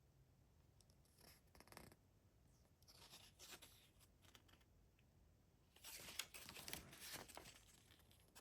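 Faint handling of a CD and its packaging: three bouts of rustling and scraping, the longest and loudest near the end.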